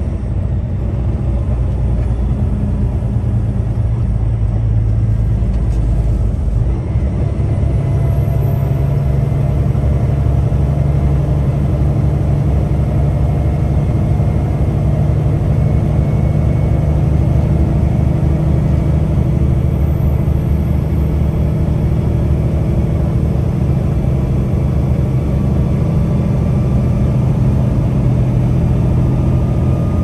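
Peterbilt 579 semi truck driving at steady speed: a continuous low engine and road rumble, with a faint whine coming in about seven seconds in.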